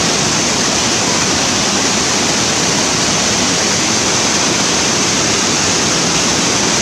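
Loud, steady rush of a waterfall cascading down a rocky channel close by, an even hiss with no breaks.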